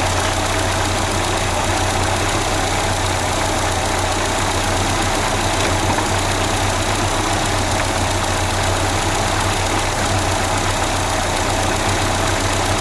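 Peugeot 505 ST petrol engine idling steadily, running on a freshly swapped carburetor.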